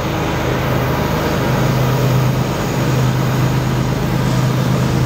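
Canadian Pacific diesel-electric freight locomotives approaching under power: a steady engine drone with a low pulsing rumble beneath it.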